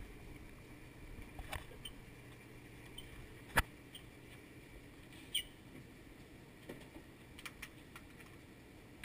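Low background with scattered small clicks and knocks. One sharp bang comes about three and a half seconds in, and a lighter knock with a short ring follows about two seconds later.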